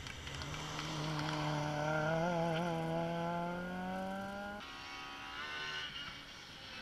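Rally car engine pulling hard, its pitch rising steadily for about four seconds, then dropping abruptly as it shifts up a gear.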